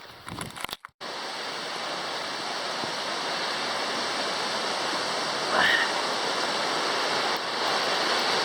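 Steady rush of creek water, starting suddenly about a second in after a brief gap. A short rising call sounds once, about halfway through.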